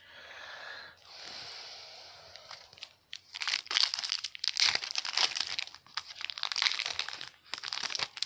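Foil trading-card pack wrapper being torn open and crinkled: a soft rustle at first, then a dense run of loud crackling from about three seconds in.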